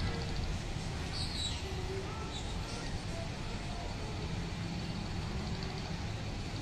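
Steady outdoor background noise, mostly a low rumble, with a few faint short chirps in the first few seconds.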